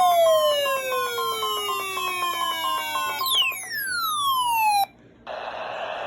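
Electronic alert-style tones: several long whistling sweeps falling in pitch over pulsing beeps near 1 kHz, with a second sweep starting about three seconds in. All of it cuts off abruptly near five seconds, and after a short silence a steady radio hiss begins.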